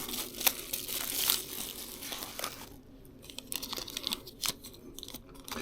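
Plastic packaging bag crinkling and rustling as it is opened and handled, busiest for the first couple of seconds, then quieter with scattered small clicks and rustles.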